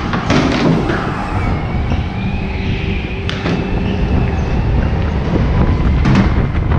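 Go-kart driving at speed: steady engine and chassis rumble, with a few sharp knocks just after the start, midway and near the end.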